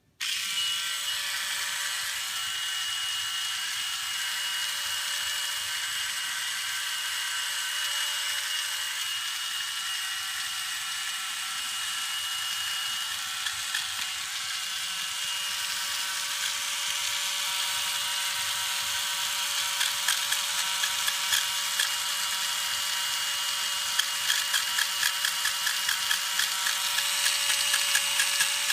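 Small electric nail grinder running with a steady high whine, used for trimming a cat's nails. From about twenty seconds in, a rapid rattling pulse joins the whine.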